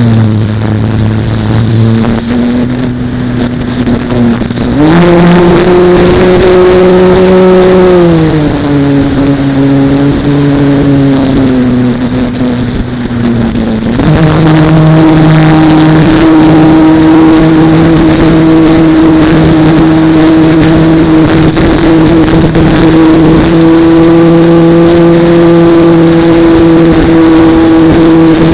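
RC airplane's motor and propeller, heard from a camera on the plane, with wind noise. The pitch drops as the throttle comes back at the start, rises again about five seconds in, eases off around eight seconds, then opens up about fourteen seconds in and holds steady.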